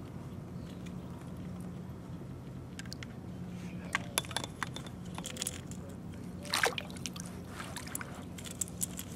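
Water sloshing and dripping around a kayak while a small hooked trout is handled, with a string of short knocks and splashes from about four seconds in, the loudest a little past the middle. A steady low hum runs underneath.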